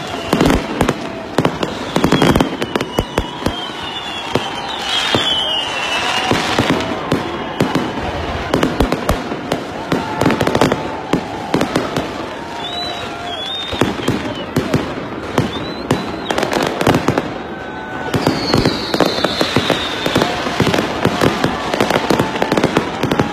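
Fireworks going off in a dense run of bangs and crackles, with a falling whistle twice.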